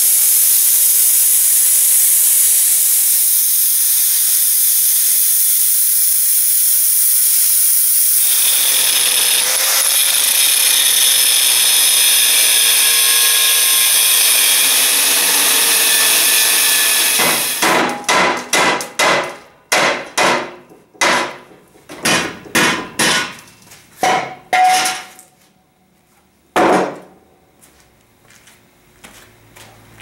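Cutting the steel shell of an old hot water heater tank: a plasma cutter hisses steadily for the first several seconds, then an angle grinder with a cutoff wheel whines as it bites into the metal, its pitch sagging under load. From a little past halfway there are about fifteen sharp, ringing metal knocks on the tank, loosening the cut-off end.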